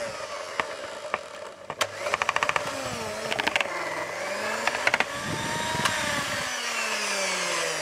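Electric hand mixer with dough hooks kneading stiff yeast dough: the motor's pitch wanders up and down under the load and falls steadily near the end, with short runs of rapid clicking in the first half.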